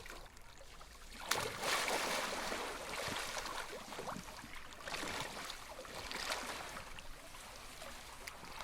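A splash about a second in, followed by swimming-pool water sloshing and lapping.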